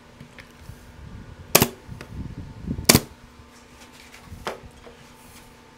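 Pin nailer firing pins into glued wooden cross pieces: two sharp shots about a second and a half apart, then a fainter click near the end.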